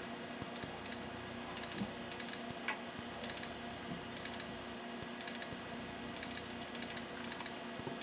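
Computer keyboard keys pressed one after another in short, irregular clicks, stepping through the Windows 98 Device Manager list, over a faint steady hum.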